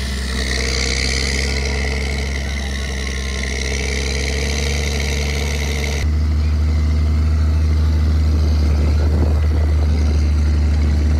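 Snowcat's diesel engine running steadily, heard from aboard as the tracked vehicle drives over snow. About six seconds in the sound changes abruptly to a louder, deeper engine hum.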